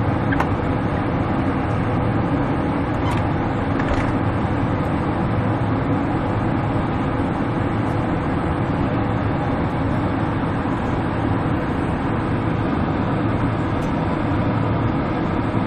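Steady airliner cabin noise: the jet engines and the rush of air over the fuselage heard inside the cabin as an even low drone, with a faint steady hum in it, on the descent toward landing.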